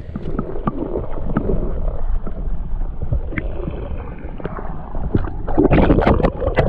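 Lake water sloshing and gurgling around a microphone dipped underwater as a largemouth bass is released beside the boat. It sounds muffled, with scattered small knocks, and grows louder and more churning about five and a half seconds in as the water is splashed.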